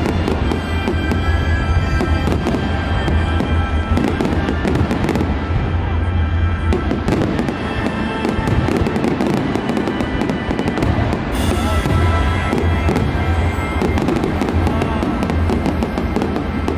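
Fireworks bursting in rapid succession, many sharp bangs and crackles, thickest in the middle, with music playing alongside.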